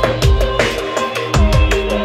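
Background electronic music with a fast, crisp drum beat and deep bass notes that slide down in pitch.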